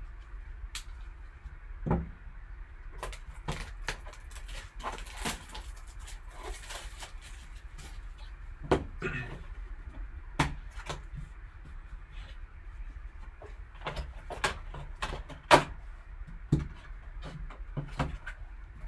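Handling noises as a trading card box and its packaging are opened: scattered sharp clicks and taps of cardboard and plastic, with a stretch of rustling about five to seven seconds in.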